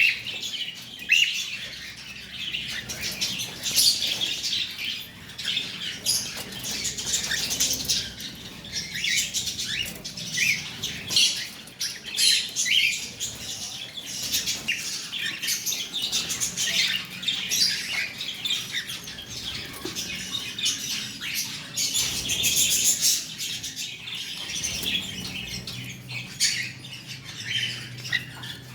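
Cockatiel chirping and squawking in short calls that come in quick succession.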